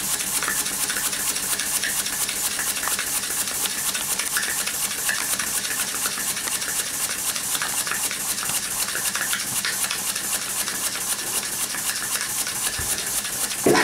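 Homemade model single-cylinder steam engine running fast on live steam: a rapid, even chuffing with steam hissing throughout.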